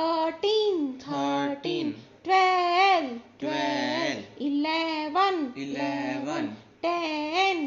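A high, child-like voice chanting numbers in a sing-song tune, counting down, in short phrases with brief pauses between them.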